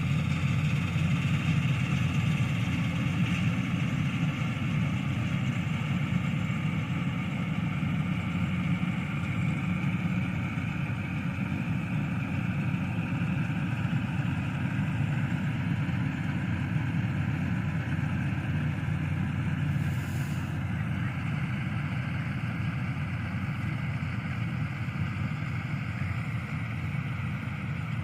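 Dasmesh 7100 combine harvester running steadily while it harvests wheat: an engine drone mixed with the whirr of its cutter and threshing machinery.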